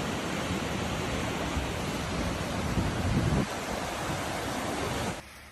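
Fast-flowing flash-flood water rushing in a steady, noisy wash, which drops away abruptly near the end.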